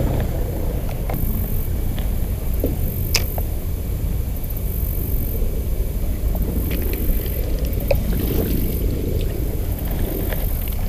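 Steady low rumble of flowing river water, with a few faint ticks.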